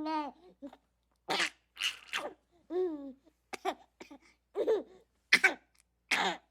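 Baby laughing in a string of short bursts, some high squealing notes and some breathy giggles, with short silences between.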